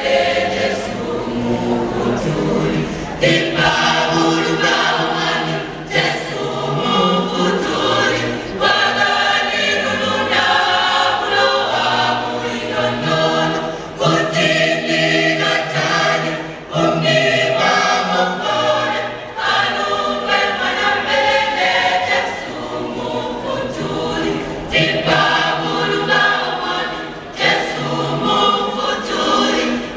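Mixed choir of men's and women's voices singing in harmony.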